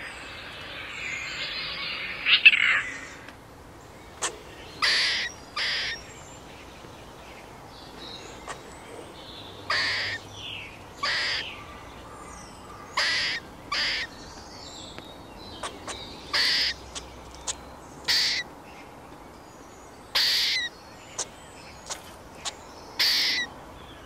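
Eastern grey squirrel giving harsh barking alarm calls, short separate calls repeated every second or two. A hissing rasp runs through the first three seconds before the calls begin.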